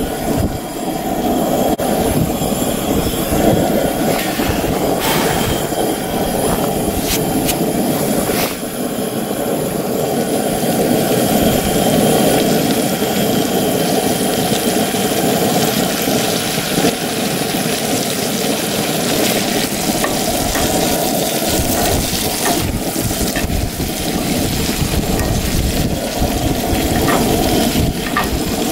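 Breaded brook trout fillet sizzling and crackling as it fries in hot butter in a cast-iron skillet, over a steady rush of wind on the microphone.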